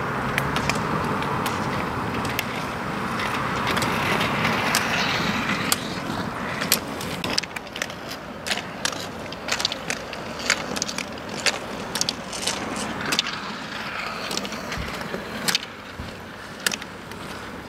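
Roller skis rolling on asphalt: a steady rush of wheel noise for the first several seconds, then sharp, irregular clicks of ski-pole tips striking the asphalt as the skier skates with poles.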